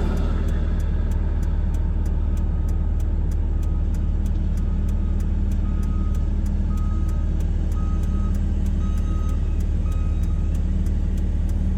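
Back-up alarm of a Case 821G wheel loader beeping about once a second as the loader reverses, from a few seconds in until near the end. Underneath is the steady low running of an idling engine.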